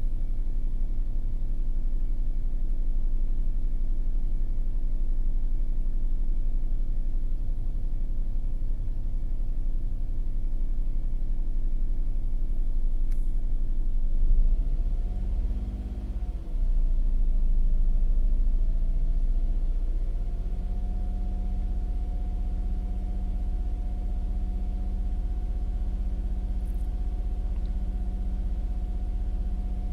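Small car's petrol engine at a fast idle of about 2000 rpm while warming up after a cold start, heard from inside the cabin. About halfway through, its pitch wavers up and down for a few seconds, then settles to a steady, slightly higher note.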